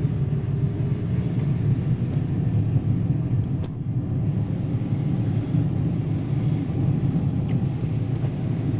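Steady low rumble of a vehicle's engine and road noise heard inside the cab while driving, with a single click about three and a half seconds in.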